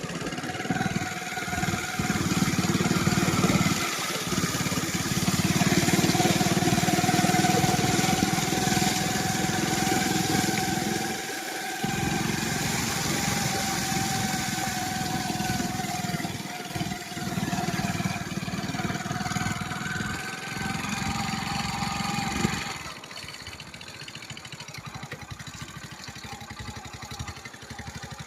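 An engine running steadily with a constant drone; the sound drops to a lower level about 23 seconds in.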